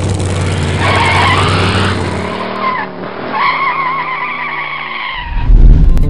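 Car sound effect: an engine running steadily, then two wavering tire squeals, the second one longer, and a deep thump near the end.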